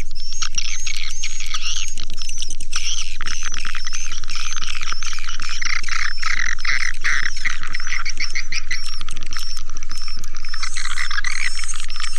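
A dense, steady chorus of swiftlet twitters and chirps, many calls overlapping with short repeated high notes. This is a swiftlet lure call recording, played to draw edible-nest swiftlets into a nesting house.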